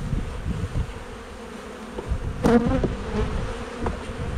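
A mass of honeybees buzzing steadily around an open hive as they are brushed off a box, with a brief louder sound about halfway through.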